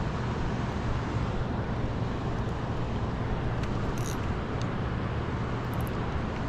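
Steady rushing noise of fast water in the dam's tailwater, with a low steady hum underneath.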